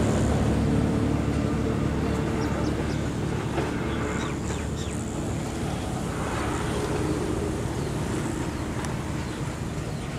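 Steady low rumble of motor vehicles and road traffic, with a faint hum.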